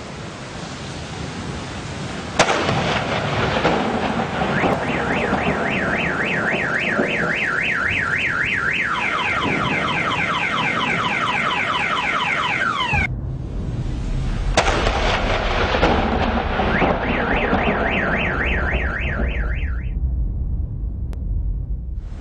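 A sharp, close thunder crack from a nearby lightning strike, then a vehicle alarm, set off by the strike, wailing in a fast rising-and-falling warble that changes to repeated falling sweeps. A second crack and the warble come again later. Heavy rain hisses throughout.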